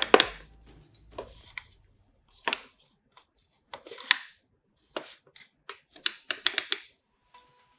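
Kitchen items being handled on a work surface: an irregular series of sharp knocks and clicks, clustering in quick runs around the middle and latter part, with short quiet gaps between.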